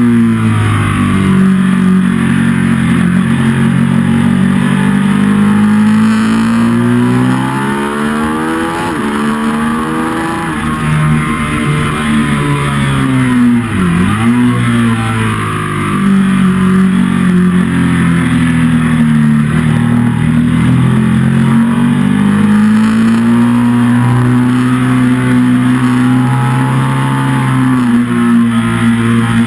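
Ducati 1199 Panigale's 1198 cc Superquadro L-twin engine at racing speed, heard from the bike's own onboard camera: the pitch climbs under hard acceleration and falls under braking several times, with a deep sharp dip and recovery about halfway through.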